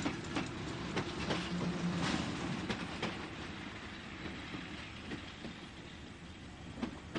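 Electric train running along the track, its wheels clicking irregularly over rail joints, growing fainter in the second half.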